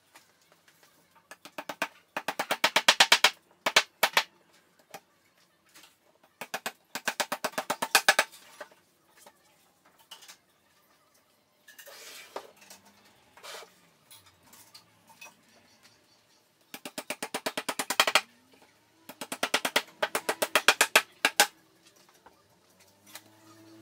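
Clicking and tapping from assembling a flat-pack particleboard drawer. It comes in four quick runs of one to two seconds each, every run growing louder, with a few scattered knocks between them.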